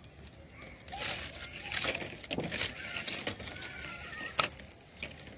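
Rigid PVC electrical conduit pipes being handled and set down on a stone slab: irregular scraping and knocking, with one sharp knock about four seconds in.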